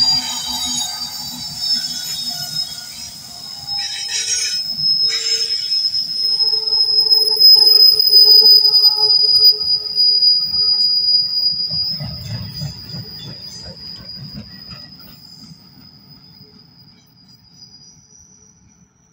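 Freight train cars rolling past on a curve, their wheels squealing against the rail in one long, high, steady tone that fades away near the end. There are two sharp knocks about four and five seconds in, and a low rumble swells around twelve seconds in as the trailing locomotive goes by.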